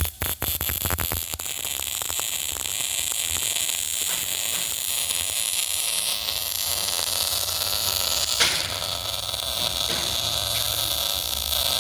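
MIG welding arc: a steady, crackling hiss, with a quick run of clicks as the arc strikes in the first second or so.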